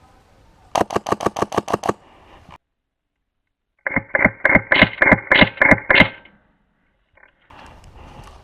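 Two bursts of rapid airsoft gunfire. The first is about ten sharp shots in just over a second. The second, about three seconds in, is a longer string of about a dozen shots over a steady high tone.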